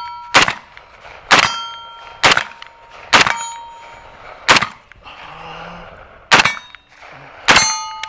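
HK G36C rifle fired in single 5.56 mm shots, seven at an uneven pace. Most shots are followed by a clear metallic ring, the sound of steel targets being hit.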